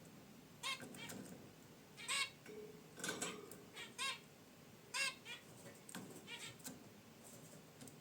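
Zebra finches giving short, nasal honking calls, one after another about a second apart, some louder and some fainter.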